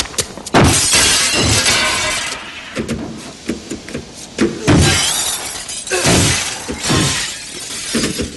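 Car windows shattering: three loud crashes of breaking glass, the first about half a second in, the others near the middle. Sharp knocks and taps fall between them.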